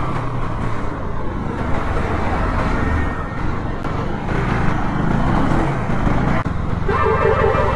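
Motorcycle engine running at low speed amid the rumble of slow traffic, with wind noise on the microphone. Near the end, a vehicle horn starts honking.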